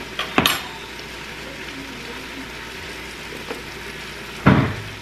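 Two sharp knocks of a knife on a cutting board, about four seconds apart, while canned biscuit dough is cut into pieces, over a steady low sizzle of vegetables sautéing in an Instant Pot.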